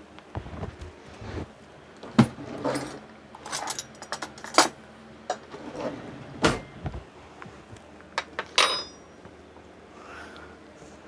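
Kitchen clatter of dishes and utensils: an irregular series of knocks and clinks, one clink ringing briefly about three quarters of the way through.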